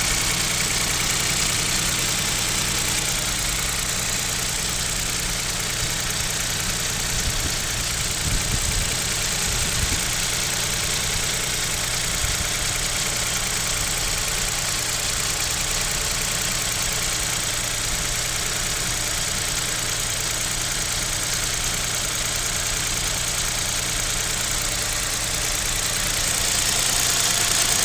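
Kia Picanto's 1.0-litre G3LA three-cylinder petrol engine idling steadily while cold, with a knock that the owner takes for piston knock, wondering whether the engine needs an overhaul.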